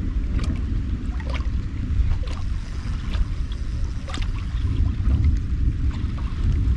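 Low, steady wind rumble buffeting the microphone on an open boat, with scattered light ticks and taps.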